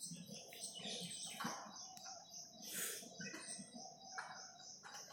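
Faint, high-pitched chirping repeated several times a second over low background noise.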